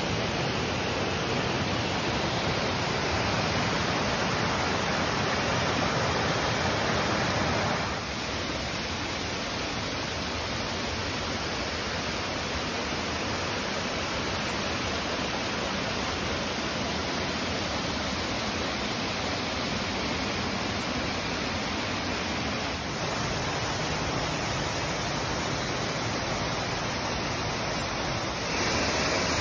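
Waterfall, falling water rushing steadily. The rush changes abruptly in loudness and tone about eight seconds in, and again near the end.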